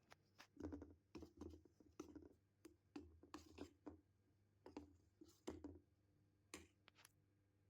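Faint, irregular scrapes, taps and rustles from objects being handled, about a dozen short sounds with small gaps between them.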